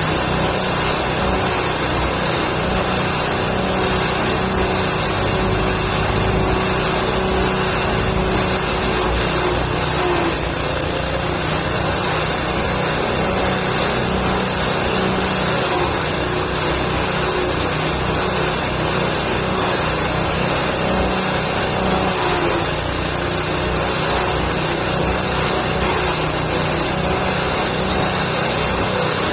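Engine-driven forage chopper running steadily, shredding indigofera and gliricidia branches into goat feed. Its pitch sags briefly about a third of the way in and again about three-quarters in, as the load comes on.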